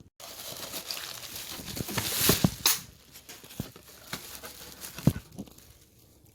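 Rustling and irregular knocks of things being handled and moved about, loudest about two and a half seconds in.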